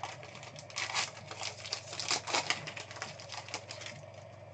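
Rapid, irregular crinkling and clicking of a trading card box and its packaging being opened and handled. The sound tapers off about four seconds in.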